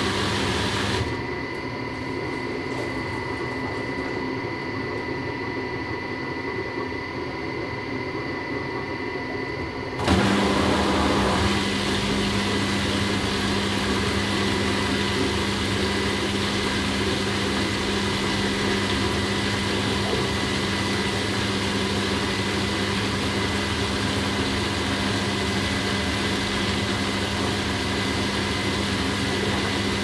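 Washing machine running, its electric motor sounding steadily. About a second in the sound turns quieter and duller. About ten seconds in it steps up louder, with a steady low hum that holds.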